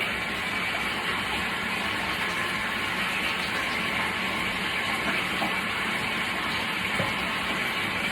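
Portable twin tub washing machine running: a steady motor hum under an even whooshing, rushing noise from the tub.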